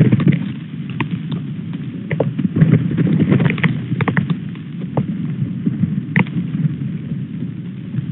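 Strong wind buffeting the nest camera's microphone as a low, fluttering rumble, with many scattered sharp clicks of hailstones striking.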